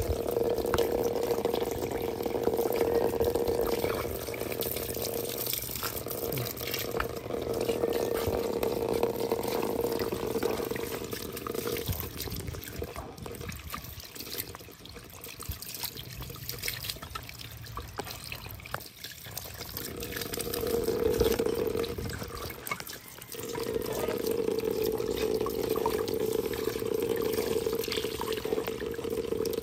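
Water running from a garden hose and splashing as a baby monkey is washed under it. The flow fades out twice midway and comes back steady.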